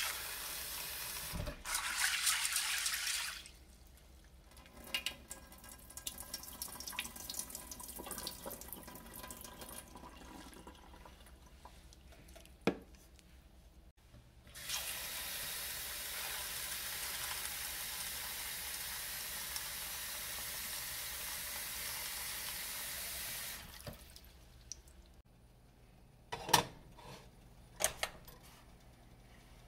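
Kitchen tap running into a stainless steel pot of dried pinto beans in the sink, in two steady stretches, with quieter sloshing and small clinks between them as the beans are rinsed. Near the end come two sharp metal clinks.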